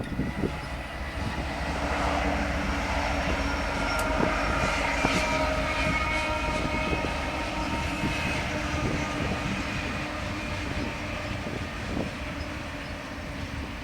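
A train rolling past with steady wheel-on-rail noise, thin steady high metallic tones over it and a few faint clicks.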